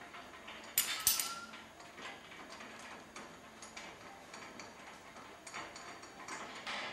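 Ratchet spanner clicking as the bolts of a steel swaging jig are undone, with two sharper metallic clicks about a second in and lighter, irregular ticking after.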